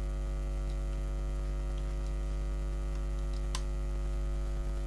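Steady electrical mains hum with a ladder of overtones, picked up by the recording chain, with a few faint clicks, the clearest about three and a half seconds in.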